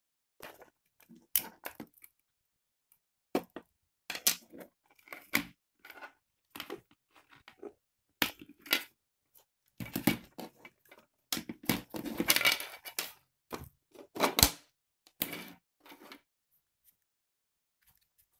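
Plastic shell of a laptop power adapter being pried apart and handled: irregular cracks, clicks and scrapes with short pauses between them, busiest about ten to thirteen seconds in.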